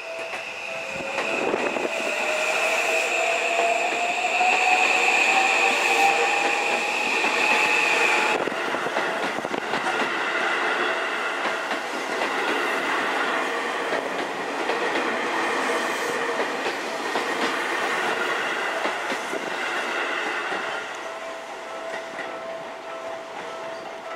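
Seibu 001 series Laview electric train pulling away, its motor whine rising steadily in pitch as it accelerates, over a steady high tone, until the sound breaks off abruptly about eight seconds in. Then the train's wheels run and clatter over the rails as it rolls away, growing a little quieter near the end.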